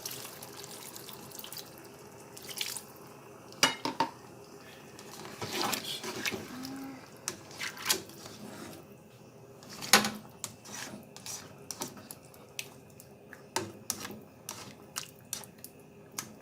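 Water poured into a pan of tomato sauce, with the clinks and knocks of a utensil against the pan, many short sharp clicks, thickest in the second half.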